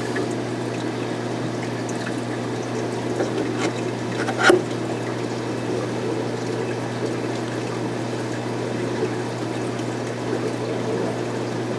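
Water pouring steadily over the screen of an algae scrubber, with the pump's steady low hum underneath. One brief knock about four and a half seconds in.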